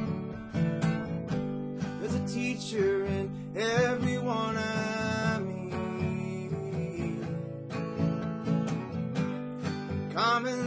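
Acoustic guitar strummed steadily, with a neck-rack harmonica playing a melody over it in bent, wavering notes. The harmonica comes in a couple of seconds in, drops out midway, and returns near the end.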